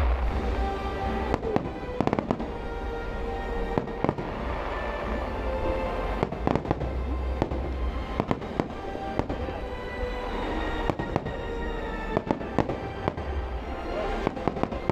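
A fireworks display going off continuously, with many sharp bangs and crackles from shell bursts over a low rumble. Music with long held notes plays underneath.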